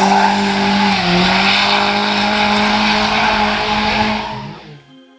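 Turbocharged Mazda Miata drifting: the engine holds steady high revs, with a brief dip about a second in, over the hiss of sliding tyres. The sound fades out near the end.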